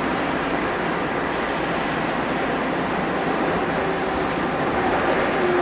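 Pipe-cutting circular saw machine running with a steady rushing noise; a faint steady tone comes in about four seconds in.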